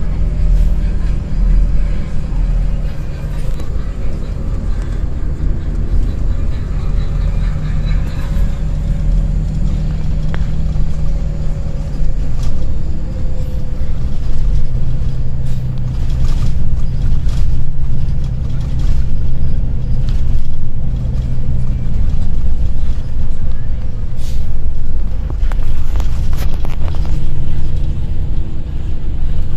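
Bus engine and road rumble heard from inside the passenger cabin, the engine's hum dropping in pitch partway through and rising again near the end, with knocks and rattles from the cabin in the second half.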